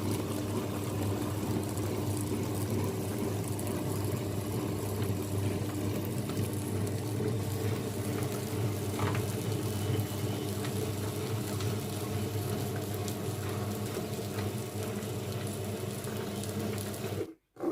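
Wonderchef Maxima wet grinder running steadily with a low motor hum, grinding wet batter for idli and dosa. The sound cuts off suddenly near the end.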